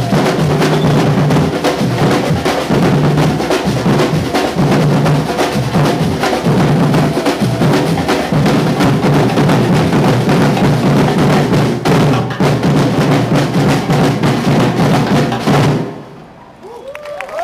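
Batuque drum ensemble playing a dense, driving rhythm on many drums, with deep bass drums under sharper strokes. It stops abruptly about a second and a half before the end.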